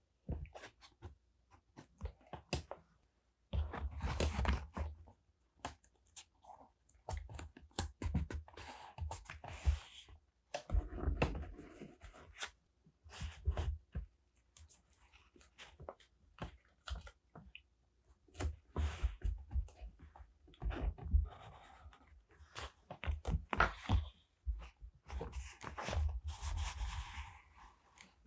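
Paper and stickers being handled on a desk while decorating a journal: irregular bursts of rustling and crinkling with many short clicks and taps.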